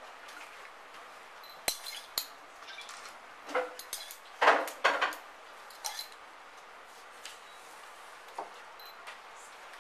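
Small glass paint jars and a wooden-handled brush clinking and knocking as they are handled and set down on a table: a few sharp, separate clinks, some briefly ringing, with a louder clatter about four to five seconds in.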